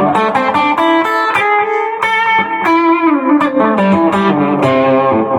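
Fender Player II Stratocaster with Lace Sensor Gold pickups playing a lead line of single notes through a Missing Link Highway 41 drive pedal, with one note sliding down in pitch about three seconds in.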